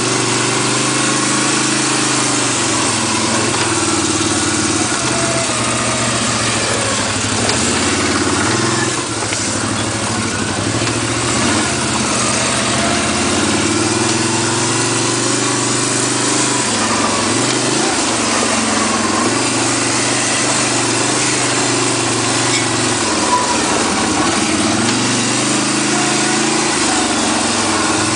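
ATV engine running under way, its pitch rising and falling again and again as the throttle changes, over a steady hiss.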